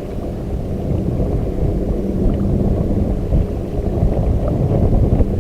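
Wind buffeting the microphone: a loud, gusty low rumble with no steady tone.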